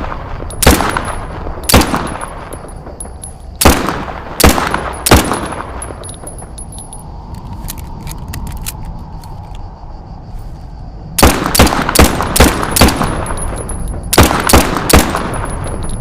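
1911 pistol shots, each sharp report followed by a short ringing tail: two single shots, then three in quick succession, then after a lull two fast strings of about six and four shots at roughly two to three a second. Faint light metallic ticks sound in the lull.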